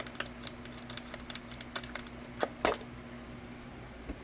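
Light, irregular metallic clicks and clinks from hand tools backing off 8 mm ignition coil bolts and pulling coil boots on a Ford 3.5L V6, with two louder clinks about two and a half seconds in.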